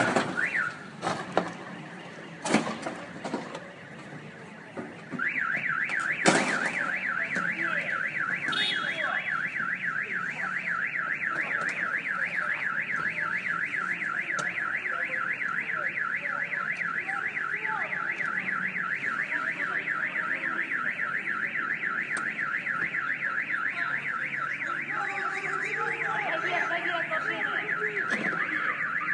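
Car alarm sounding a fast, rising-and-falling warble that starts about five seconds in and keeps going without a break. A few knocks come before it, and one loud knock just after it begins.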